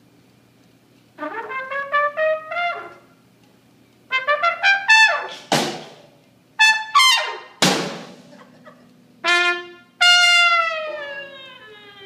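Unaccompanied trumpet solo: short jazz phrases broken by pauses, ending in a long note that slides downward in pitch.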